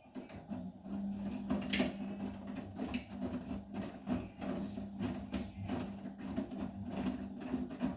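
Vestel CMI 97302 front-loading washing machine turning its drum during a 70 °C cotton wash: a steady motor hum with many irregular knocks and swishes of the wet laundry tumbling.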